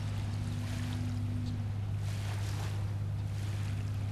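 Steady low engine hum with wind on the microphone; a higher tone joins it briefly about half a second in.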